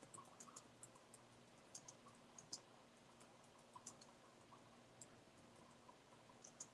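Faint, irregular clicks of typing on a keyboard over near-silent room tone with a faint low hum.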